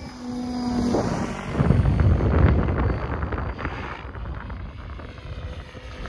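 Protos 770X Evo electric RC helicopter in flight: its rotors and brushless motor whine steadily, and a louder rotor rush swells up about a second and a half in and eases off again.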